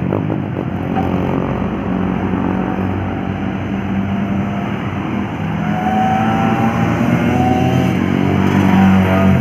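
A heavily loaded bus or truck's diesel engine pulling hard up a steep climb, growing louder over the last few seconds. A higher whine sits over it for about two seconds past the middle.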